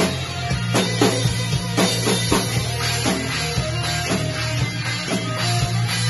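Rock music: a drum kit struck hard in a driving pattern, several hits a second, over sustained bass and guitar tones.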